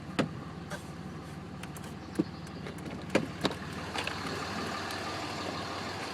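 Car engine idling, a steady low hum under an even wash of noise, with several sharp clicks along the way.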